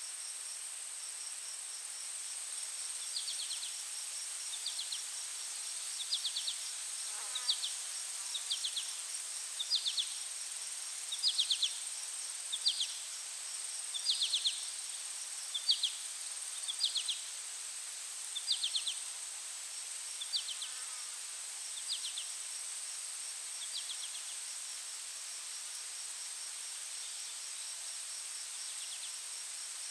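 Insects: a steady high-pitched drone with a fast pulsing trill beneath it. About three seconds in, a series of short chirps joins, roughly one a second, dying away after about twenty-five seconds.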